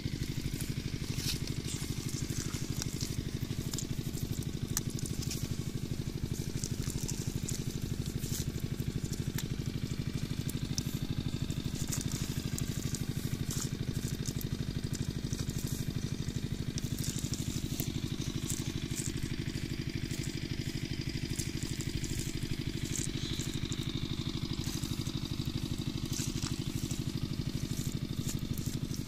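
An engine running steadily at an even speed, a low rapid chugging, with scattered light clicks over it.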